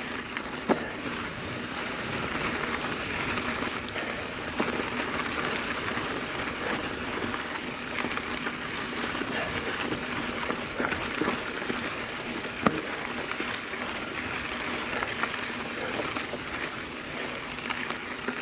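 Mountain bike tyres rolling slowly up a steep dirt and gravel trail: a steady crunching hiss with a few sharp clicks and knocks from stones and the bike.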